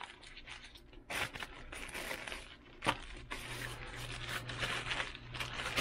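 Thin plastic mailer bag crinkling and rustling as it is cut with scissors and pulled open by hand, with one sharp click just before the midpoint.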